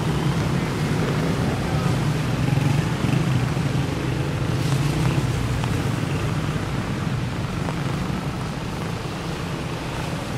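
Road traffic on a rain-wet highway: vehicle engines running nearby over a steady hiss.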